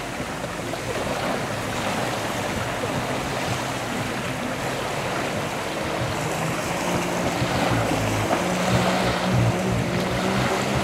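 Water lapping and wind, then about six seconds in a jet ski's engine comes in under way, its low steady tone stepping up in pitch as it speeds up.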